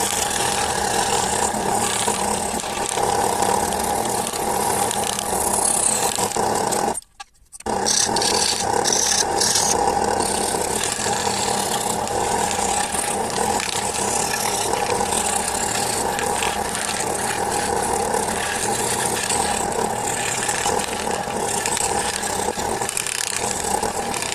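Power tool running against wood, a steady motor hum with rasping and scraping as the wood is shaped. It cuts out briefly about seven seconds in, then carries on.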